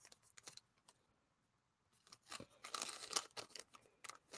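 Near silence, then about two seconds in a run of crinkling and rustling from packaging being handled.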